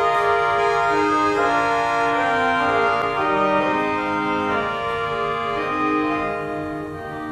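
Binns pipe organ playing slow sustained chords on two string stops together: the swell Vox Angelica, an undulating, deliberately out-of-tune Dulciana-type stop, with the brighter Viola d'Orchestra. The chords soften near the end.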